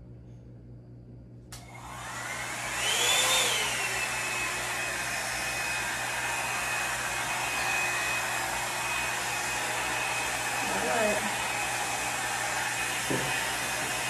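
Revlon One-Step hair dryer and volumizer switched on about a second and a half in: its motor spins up with a rising whine, then runs steadily, blowing a constant rush of air with a steady high whine over it.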